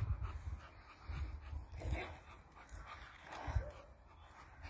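Boxer dog panting and breathing in a few short, noisy bursts while it plays, over low rumbling thumps, the loudest right at the start.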